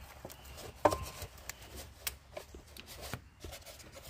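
Scattered clicks, knocks and rubbing of engine-bay parts being handled as the air box is pulled out, with one sharp knock about a second in.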